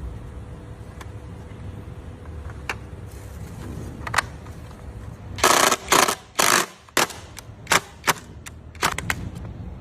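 Plastic interior trim parts and clips being handled and snapped: a run of sharp clicks and a few short rasping snaps starting about halfway through, over a steady low hum.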